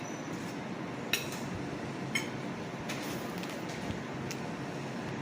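Steady background hiss with two light clinks about a second apart, then a few fainter ticks.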